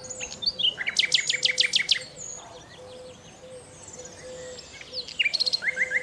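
Common nightingale singing: a fast run of repeated notes about a second in, softer varied whistled phrases, then another rapid trill near the end.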